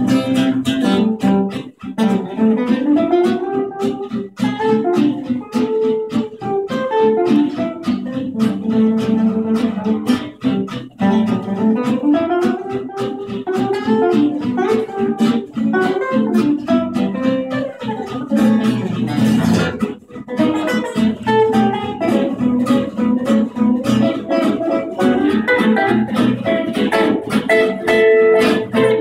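Gypsy jazz played on four acoustic guitars: a single-note lead line winding over steady strummed rhythm chords.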